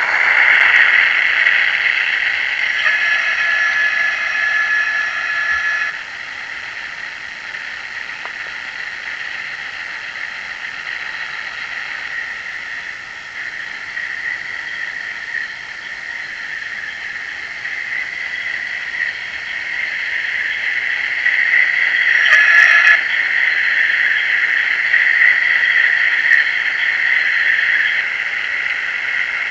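Model Class 73 locomotive's DCC sound decoder playing its diesel engine sound through the loco's small speaker as it runs. The engine sound drops in level about six seconds in and builds up again later. A steady held tone sounds for a few seconds early on, and a brief one comes about 22 seconds in.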